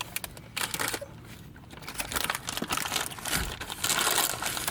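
Paper fries bag crinkling and crackling as it is handled and opened up. There are many quick irregular crackles, with a quieter spell of about a second near the start.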